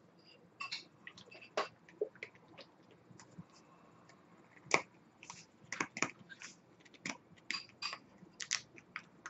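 Irregular small clicks and taps from hands handling a vape rebuildable dripping atomizer, with one sharper click about halfway through.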